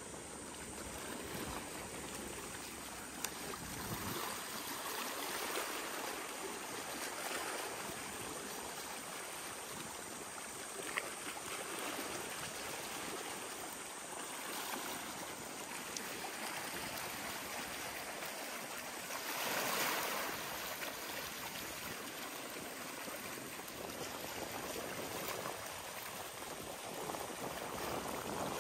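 Small waves of shallow sea water lapping and splashing against a concrete seawall and the rocks at its foot, coming in gentle surges, with one louder wash about two-thirds of the way through.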